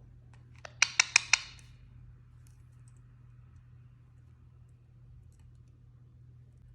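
Indian ringneck parakeet giving four quick, sharp clicking chirps in a row about a second in.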